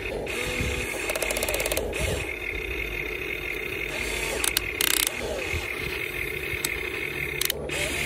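Huina 1550 RC excavator's electric motors and gearboxes whirring as the upper body swings and the boom moves, with a quick run of gear clicking about a second in and short louder bursts around the middle and near the end.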